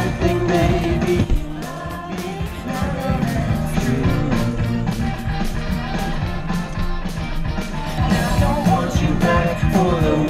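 Upbeat rock-and-roll song with a lead vocal singing over a steady drum beat.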